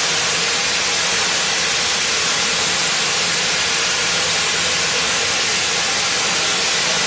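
Loud, steady hissing that holds at one level throughout, without pauses or changes.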